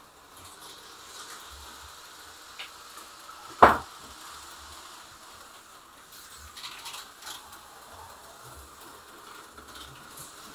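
HO-scale slot car running on plastic track: a faint steady motor whir with light clicks, and one sharp clack about three and a half seconds in. The car is running poorly, and the owner suspects its armature is old.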